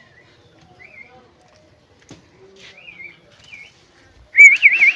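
Pet common mynas calling with short chirps and whistles, then a loud warbling whistle with a quick wavering pitch near the end.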